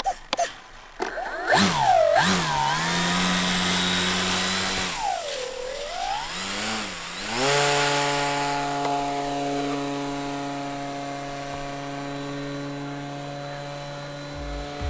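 Electronic music intro: sweeping synth tones that bend down and back up, then a held droning chord, with a drum beat starting right at the end.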